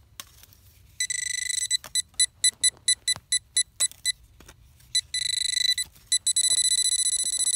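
Handheld Deteknix pinpointer probe sounding its buzzy, high-pitched alert tone as it is worked in a dig hole. It gives a short steady tone, then beeps rapidly about four times a second, and settles into a continuous tone near the end as it closes in on the buried target.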